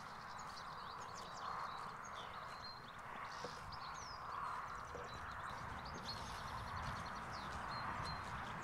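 Horse grazing close by: tearing off and chewing grass, with small birds chirping and singing in the background.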